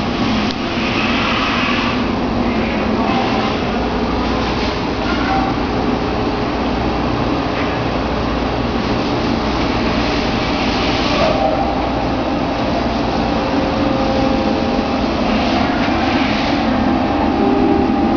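Steady drone of machine-shop machinery running: a constant noisy hum with faint whining tones above it.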